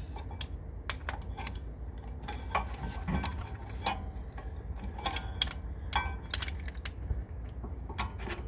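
Irregular metallic clicks and clinks of a brake caliper piston wind-back tool being turned to screw the rear caliper piston back in, some strokes ringing briefly.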